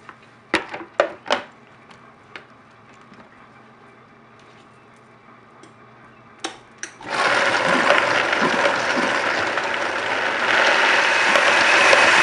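A few sharp knocks and clicks, then about seven seconds in a Vitamix blender starts and runs loud and steady, grinding soaked cashews with a little water. The noise grows louder about ten seconds in.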